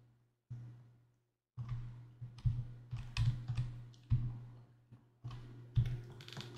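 Computer keyboard keys pressed and held at irregular intervals while steering a car in a driving plugin: a series of separate clicks and taps. A low steady electrical hum sits underneath and drops out completely twice in the first second and a half.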